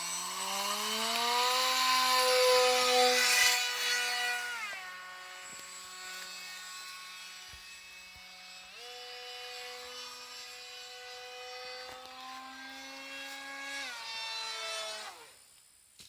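Homemade RC plane's 1400 kV brushless electric motor spinning an 8x4 propeller on a 4-cell lipo: a buzzing whine that is loudest in the first few seconds, steps down in pitch about five seconds in, steps back up about nine seconds in, and winds down and stops near the end as the throttle is cut.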